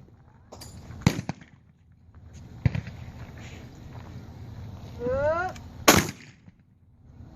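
Shotgun shots in trap shooting: three sharp reports, about a second in, near three seconds, and the loudest near six seconds. A short shouted call comes just before the last shot.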